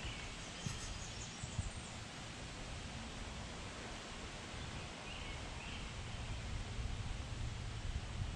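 Outdoor background noise: a steady low rumble and hiss, with a few faint chirps about five seconds in.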